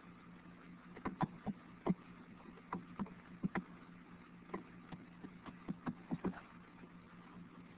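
Faint, irregular light clicking at a computer, some clicks in quick pairs, over a steady low electrical hum.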